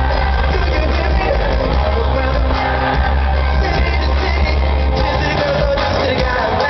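Live R&B concert music through an arena sound system: a male singer with a heavy, steady bass beat, with the crowd shouting underneath.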